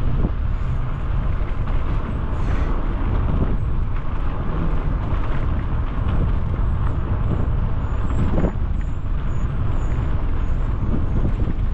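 Wind buffeting the microphone of a helmet-mounted GoPro while cycling: a steady low rumble.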